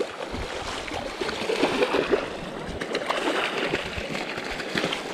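A hooked salmon thrashing and splashing in shallow water over the steady rush of a river. The loudest splashes come about two seconds in and again near the end.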